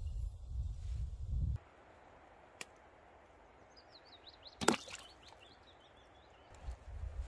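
A potato dropped into a cast-iron pot of hot water lands with a single sharp splash about halfway through, the loudest sound here, while a small bird sings a run of quick high chirps. Before that, a low rumble runs for about the first second and a half.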